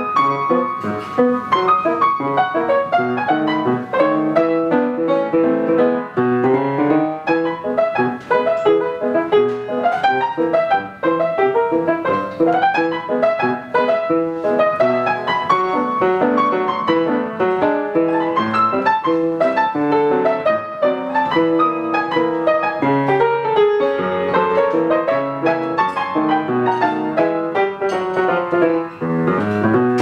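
A 19th-century Schröder grand piano played solo in a lively Charleston: a steady stream of notes, with a bass line under the melody.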